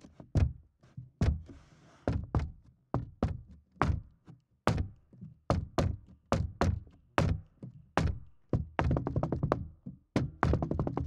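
Tap shoes striking a wooden dance board, picked up through contact microphones (a LOM Geofon geophone and an AKG C411 vibration pickup), so each tap is heavy in the low end. Single taps come about half a second to a second apart and quicken into short runs near the end.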